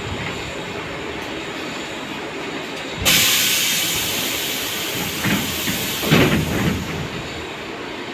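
Sudden loud hiss of compressed air being released on a tram standing at a stop, starting about three seconds in and fading over several seconds, over the car's steady low running noise.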